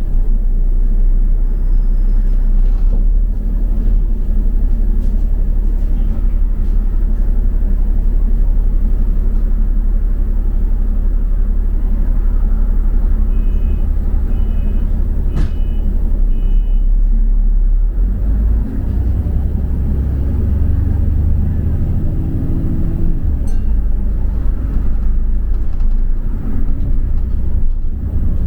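London double-decker bus heard from inside: a steady low engine rumble, with four short beeps about halfway through. Then the engine note rises as the bus pulls away.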